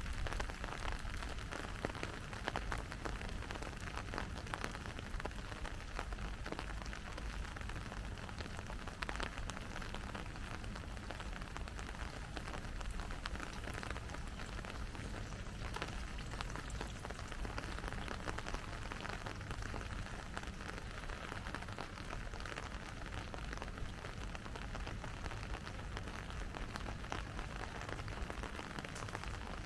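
Steady rain falling, a dense patter of small drops over a low rumble.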